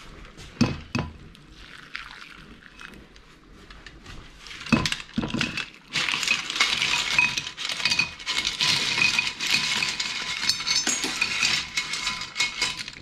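Steamed cockles tipped from a pan into a china bowl: two sharp knocks near the start and another about five seconds in, then from about six seconds a long run of shells clattering and clinking against each other and the bowl, stopping at the end.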